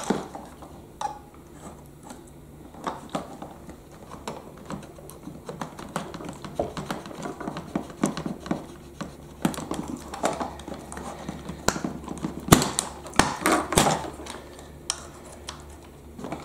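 A small woodworking chisel scraping and cutting into the plastic tabs inside a toy telehandler's body: a run of small clicks and scrapes, with a louder flurry about three-quarters of the way through.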